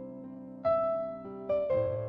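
Slow background piano music: single notes ring and fade, with a new note struck about half a second in and another near the end.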